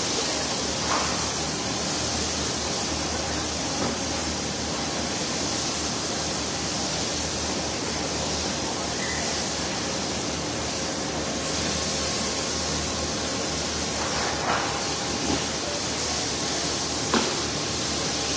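Steady rushing background noise in a durian packing warehouse, with a few light knocks as durians and cardboard boxes are handled: one about a second in and two near the end.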